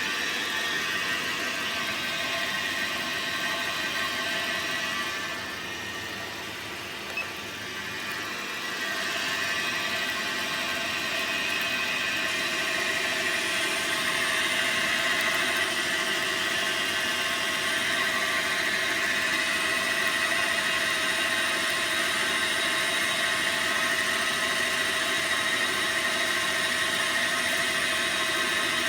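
Dyna Mechtronics DM3000 CNC lathe running while it turns a part, its motors giving a steady whine with several held tones. The sound drops back for a few seconds about a third of the way in, with one sharp click, then runs on a little louder with a higher whine added.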